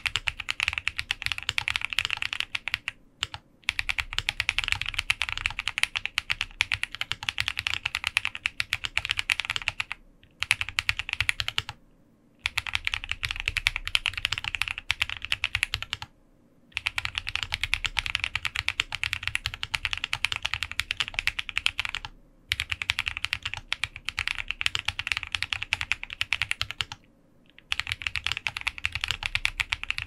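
Fast typing on a Mode65 mechanical keyboard with Krytox 205g0-lubed Drop Invyr Holy Panda tactile switches, a POM plate and GMK keycaps. Keystrokes come in dense runs, broken every few seconds by brief pauses.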